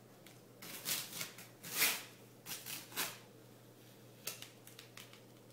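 Strips of duct tape being peeled up off a tabletop and flipped over by hand: a run of short rustles and peels over the first three seconds, the loudest about two seconds in, then a couple of light ticks.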